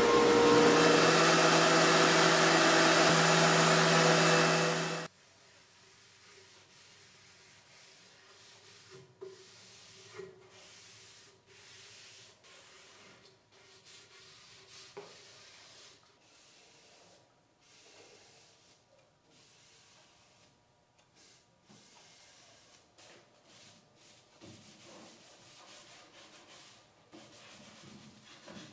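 Router table running with a steady whine as a walnut board is pushed past the bit, cutting off abruptly about five seconds in. Then faint, uneven rubbing of a rag wiping finish onto the walnut.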